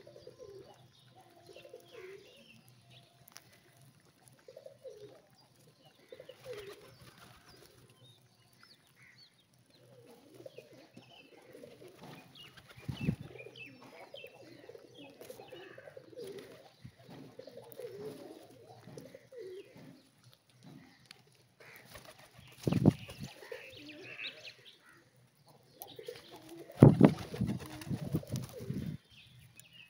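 A flock of rock pigeons cooing continually at close range. Loud flurries of wing flapping break in a few times, the loudest near the end.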